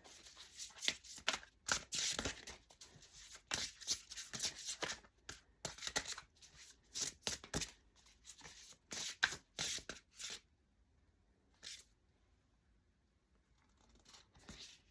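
A deck of oracle cards being shuffled by hand: a quick run of papery card-on-card strokes for about ten seconds, then it stops, with one more short card sound a little later.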